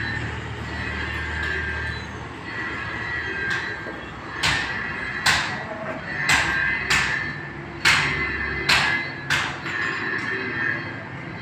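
Diesel oil-fired furnace running with a steady drone and a high ringing tone. Midway, about eight sharp knocks come at irregular intervals over some five seconds.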